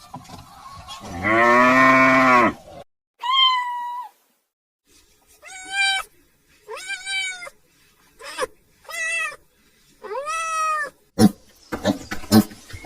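A cow mooing once, then a domestic cat meowing about six times with rising-and-falling cries, followed near the end by a run of short sharp calls.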